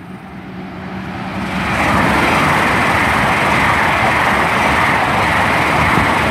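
Great Western Railway Class 800 Intercity Express Train passing through the station at speed without stopping. The rushing noise of wheels on rail and air builds over the first two seconds as it arrives, then holds loud as the carriages go by.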